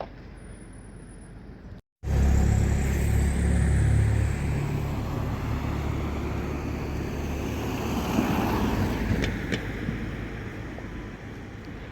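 Volvo fire engine's diesel engine running, loud from about two seconds in and then easing off and slowly fading as the appliance pulls away.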